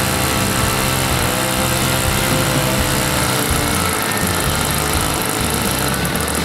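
Engine of a large radio-controlled model biplane idling steadily on the ground, its propeller turning.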